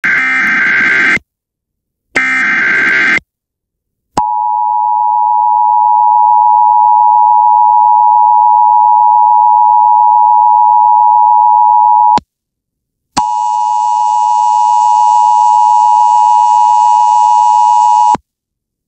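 Emergency Alert System tones over a radio broadcast: two harsh one-second data bursts of the alert header, then the steady two-tone attention signal for about eight seconds. The tone breaks off for a second, then a steady alert tone sounds again for about five seconds.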